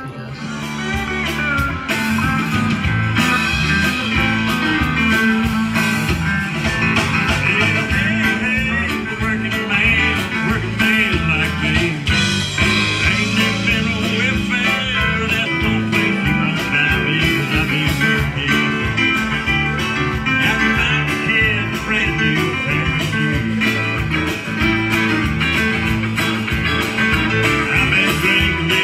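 A live band playing amplified through PA speakers: acoustic and electric guitars, keyboard and drums.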